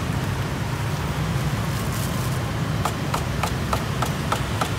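Steady low rumble of a kitchen pot on the boil, and from about three seconds in a quick run of light ticks, about four or five a second, as a wire noodle-blanching basket is worked with wooden chopsticks and lifted from the water.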